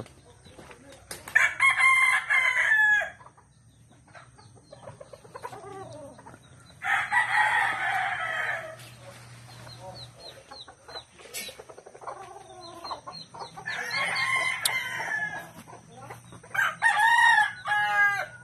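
Roosters crowing, about four long crows a few seconds apart.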